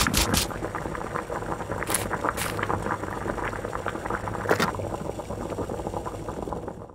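Pot bubbling and simmering on a hob, a steady crackling hiss with many small pops. A few sharper clicks come near the start and again around two and four and a half seconds in.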